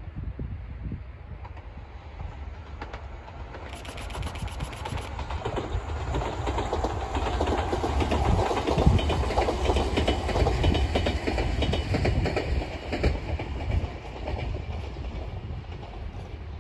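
Enshu Railway electric train passing close by: the running noise builds as it approaches, is loudest with rapid wheel clatter over the rails about eight to thirteen seconds in, then fades as it moves away.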